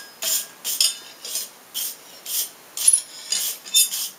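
Brass wire brush scrubbing a hot, freshly forged steel bottle opener in short rhythmic strokes, about two a second, with light metallic clinks now and then. The brushing lightly highlights the edges while leaving the black hammered forge finish.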